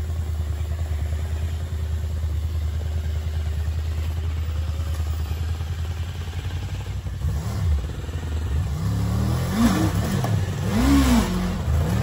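Honda motorcycle engine idling steadily, then revved up and down several times over the last few seconds, its pitch climbing and falling with each blip of the throttle.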